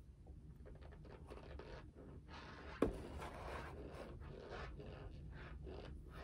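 Chewing a mouthful of raw cornstarch: sparse at first, then a dense run of small dry crunches, with one sharp click about three seconds in.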